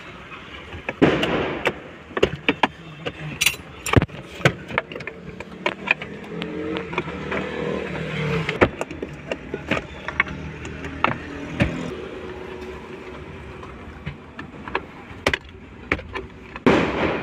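Irregular sharp clicks and knocks of hand tools against plastic car interior trim as a centre console is worked loose and refitted. There is a longer scraping rustle about a second in and again near the end.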